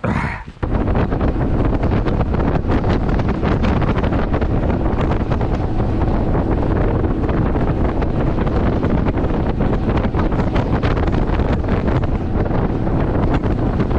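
Loud wind buffeting the microphone of a camera on a bass boat running at speed, with the boat's outboard motor underneath. It starts suddenly about half a second in and stays steady.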